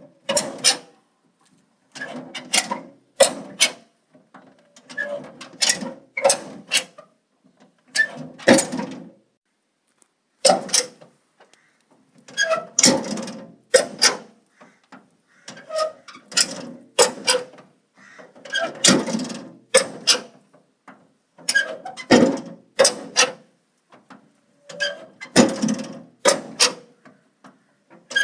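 Metal door being worked back and forth, its hinges creaking and its metal parts clicking in short bursts about every two seconds.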